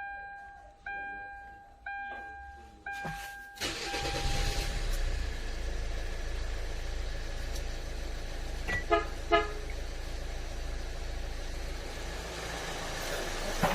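A chime rings about once a second, four times. Then, about four seconds in, a Kia Sportage R's engine is started by remote start and settles into a steady idle. Two short horn chirps sound about nine seconds in.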